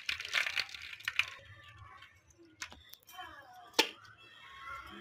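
A hand squishing and scooping through soft, freshly churned butter floating in buttermilk in an aluminium pot, a wet crackling that fades after about a second, with a single sharp knock just before the end.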